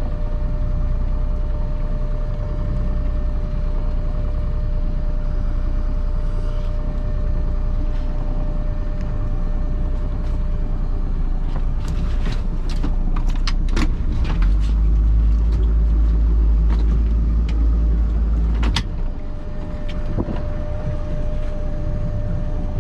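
Small fishing boat's engine running steadily with a thin whine, growing much louder for about four seconds past the middle and then dropping back with a sharp knock. A few knocks and clicks come shortly before the surge.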